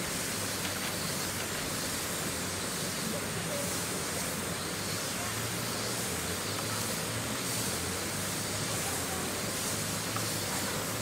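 Steady outdoor background noise: an even, constant hiss with no distinct sound standing out.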